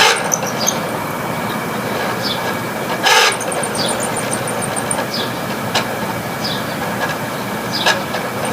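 Failing room air conditioner running with its fan blades sloshing through water: a steady rushing noise broken by irregular swishes and knocks. A sudden loud splash-like crash comes about three seconds in. The compressor is in overload.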